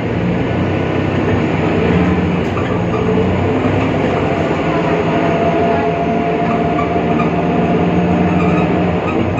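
BredaMenarini Avancity Plus city bus under way, its Deutz diesel and ZF Ecomat 6-speed automatic drivetrain running steadily with a held whining tone that becomes clearer about halfway through, the strange sound traced to a faulty differential.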